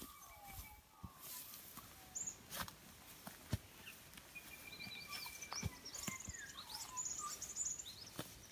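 Several birds chirping and calling, busier in the second half, over scattered footsteps and rustling through long grass.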